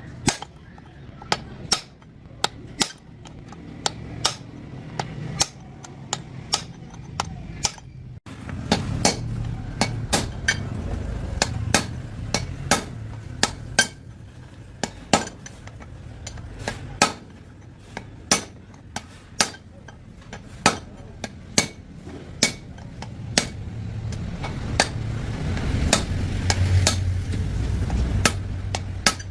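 Repeated sharp taps of a hammer or hand tool on metal, irregular at about one or two a second, over a low rumbling noise.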